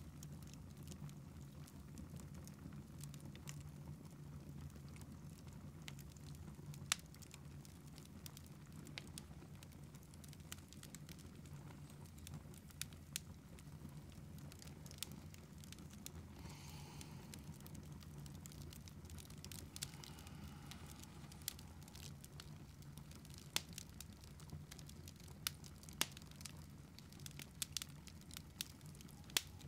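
Wood fire crackling in a fireplace: faint, irregular sharp pops and snaps over a low steady hum, the pops coming more often in the last few seconds.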